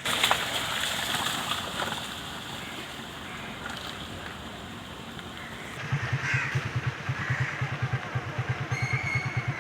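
Road traffic noise: a sudden clatter at the start and passing-vehicle noise. From about six seconds in, a small engine runs with a steady fast throb, and a short high tone sounds near the end.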